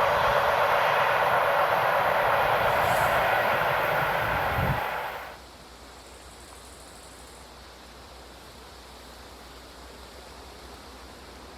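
Train cars rolling past at speed: a steady rushing noise with wheel rumble underneath, which falls away suddenly about five seconds in.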